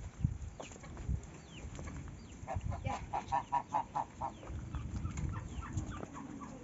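Chickens clucking: a quick run of about eight short clucks, roughly four a second, starting about two and a half seconds in.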